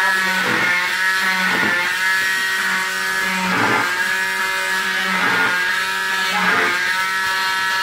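Electric oscillating cast saw running with a steady whine, broken every second or two by short rougher moments as it works through the cast.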